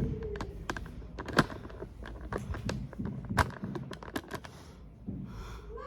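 Irregular light clicks and taps, with two sharper clacks about a second and a half and three and a half seconds in.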